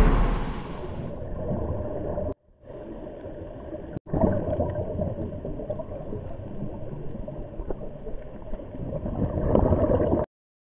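Muffled underwater sound of gurgling and bubbling water, picked up by a camera below the surface. It cuts off abruptly near the end.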